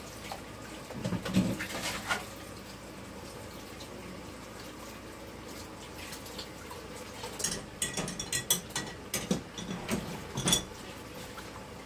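Dishes and utensils clinking and knocking while being washed at a kitchen sink and loaded into a dishwasher rack, with a few knocks early on and a quick run of clinks in the last few seconds.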